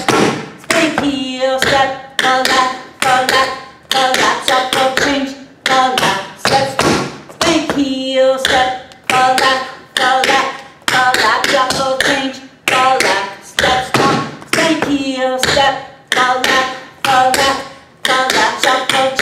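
Metal taps on tap shoes striking a hard floor, dancing the buffalo time step in a steady repeating rhythm of quick clusters of strikes. Each strike is a sharp click with a short metallic ring.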